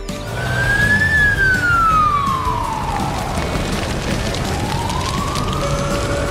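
Electronic siren of a LEGO fire truck's light-and-sound brick: a single wailing tone that rises, sweeps slowly down and then climbs again.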